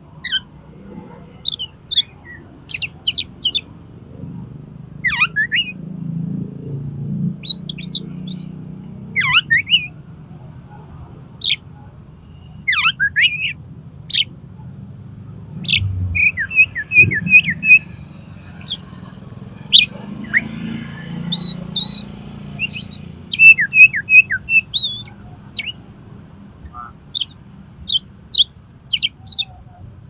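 Oriental magpie-robin (kacer) singing: a varied string of sharp whistles and chirps sweeping up and down, broken twice by quick runs of repeated short notes, about midway and again later on.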